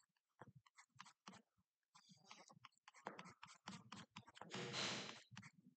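Faint, irregular clicks and taps of a stylus on a pen tablet as handwriting is written, with a brief hiss about four and a half seconds in.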